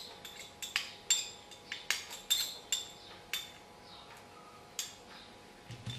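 Metal spoon clinking against the inside of a glass pitcher as the drink is stirred. The taps are sharp and ringing, about a dozen, quick and irregular for the first few seconds, then only a few more toward the end.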